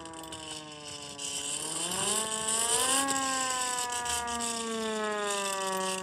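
Small single-tone hand-crank air raid siren wailing as its crank is turned, with a rushing noise under the tone. Its pitch sags a little, winds up about two seconds in, then slowly winds down.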